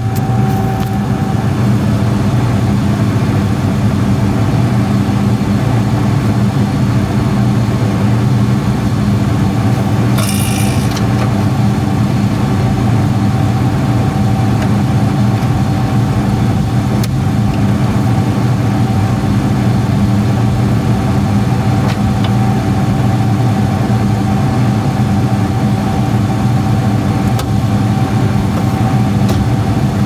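Combine harvester's diesel engine idling steadily, with a brief high-pitched noise about ten seconds in.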